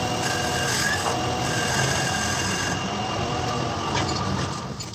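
Lathe running under power and cutting a square thread on a large bolt: a steady machining noise with faint high squealing tones from the tool on the metal. It stops near the end.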